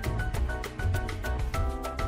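Background music with a steady beat: low bass thumps and quick ticking percussion under short melodic notes.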